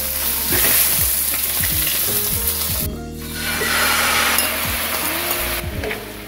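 Food sizzling in a hot non-stick frying pan: first the browned tofu cubes, then, after a short break about three seconds in, soy-based seasoning sauce poured into the pan sizzles and bubbles as it is stirred with a wooden spatula.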